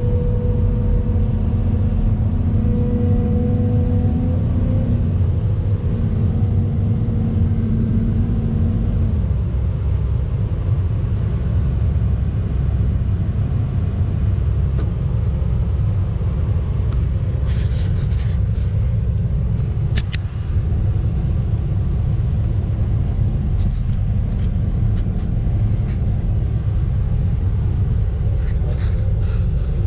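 Hydraulic excavator's diesel engine and hydraulics running steadily under load, heard from inside the operator's cab. A steady whine over the engine's rumble fades out about a third of the way through, and a few sharp clicks and clatters come past the middle and again near the end.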